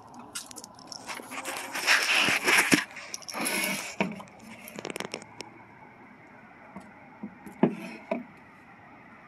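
Handling noise from plastic Polk Audio speaker cabinets being moved and turned on a tabletop: scraping and rustling for a few seconds, a quick run of clicks, then two sharp knocks near the end.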